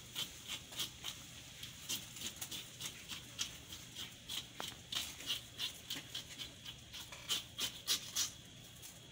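Knife scraping the scales off a surgeonfish (labahita), a quick run of short uneven strokes, about two or three a second.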